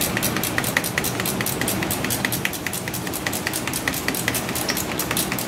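Ratchet wrench clicking rapidly and evenly, about five clicks a second, as an alternator mounting bolt on a 1990 Honda CRX is turned loose.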